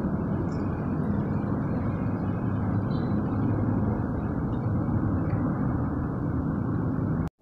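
Steady low rumble of traffic noise, continuous and unchanging, cutting off abruptly near the end.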